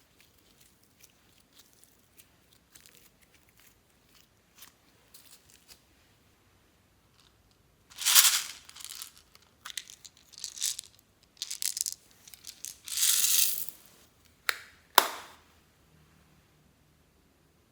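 Mostly faint small ticks for about eight seconds, then a run of loud crinkling and crushing bursts, the longest just past halfway, ending with a sharp click: objects being crushed or crinkled while things are mixed into slime.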